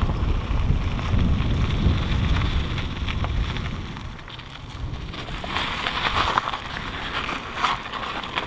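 Wind buffeting the microphone of a helmet camera while a mountain bike rolls along a dirt trail. About four seconds in the wind drops, and the crunch and rattle of the tyres on loose dirt takes over, with short knocks from the bike.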